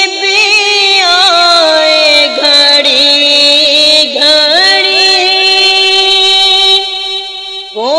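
A voice singing a naat, drawing out long wordless held notes with slow sliding turns in pitch. The notes dip lower in the middle and the phrase fades near the end.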